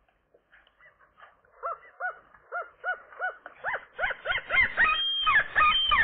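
Adult gull calling close to the microphone: a run of short, arched calls about three a second, growing steadily louder from about a second and a half in, with more gull calls overlapping it in the last two seconds.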